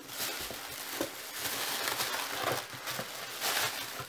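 Rustling and crinkling of a cardboard shipping box and its packing being opened by hand, with a few sharp clicks.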